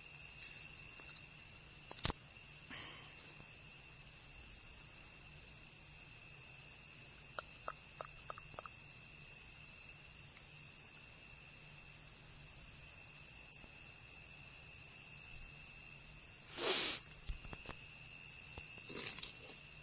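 Night insect chorus: a steady high-pitched trill, with another insect calling in short regular pulses about a second apart. There is a brief knock about two seconds in and a short rustle near the end.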